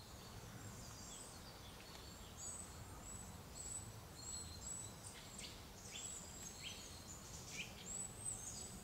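Faint forest ambience: small songbirds chirping and singing in short, high, repeated calls over a low, steady background rumble.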